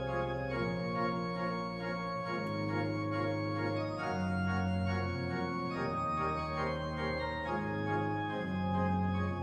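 Church organ playing sustained full chords over a bass line that steps to a new held note every second or two.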